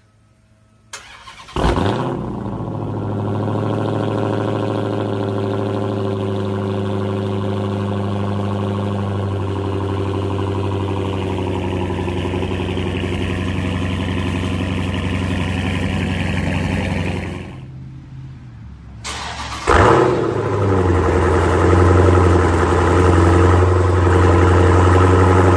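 Dodge Challenger SRT's Hemi V8 starting with a sudden loud burst about a second in, then idling steadily with a deep, even exhaust note. Near the end a second Dodge Challenger starts with another sudden burst and idles loudly.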